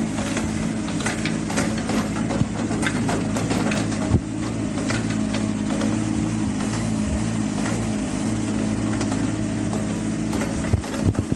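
Shanyi SY25-5 compact excavator's Yanmar diesel engine running steadily, with scattered short clanks and knocks from the working machine, a sharper knock about four seconds in and a few more near the end.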